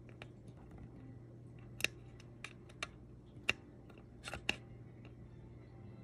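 Handling of a washing machine control circuit board: a handful of irregular sharp clicks and taps, the loudest about two seconds in and again a second and a half later, with a quick cluster near the end, over a faint low steady hum.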